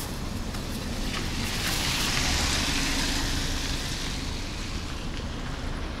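A vehicle passing on wet asphalt: its tyre hiss swells and fades around the middle, over a steady rumble of wind on the microphone.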